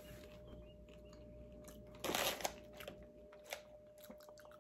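A person chewing seasoned popcorn: soft, scattered crunches, with one brief louder crunchy noise about two seconds in.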